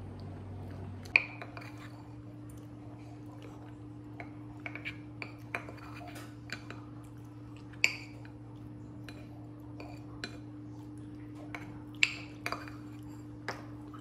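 A wooden spoon tapping and scraping against a ceramic bowl while eating, with scattered light knocks and three sharper ones: about a second in, just past halfway, and near the end. A steady low hum runs underneath.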